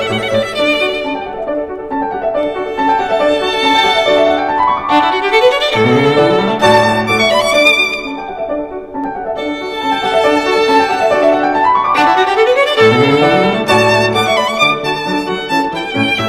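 Background music led by a violin playing a melody, with sliding rising phrases that repeat about every seven seconds.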